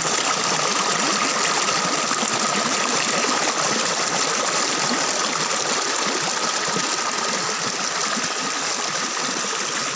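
Small stream spilling over rocks into a pool: a steady, loud splashing rush of water heard up close.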